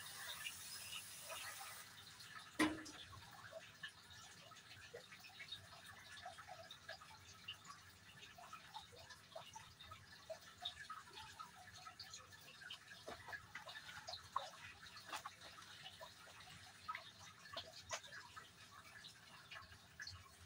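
Garden hose spray nozzle hissing faintly, cut off about two seconds in, followed by a single sharp click. After that, scattered light water drips and small ticks.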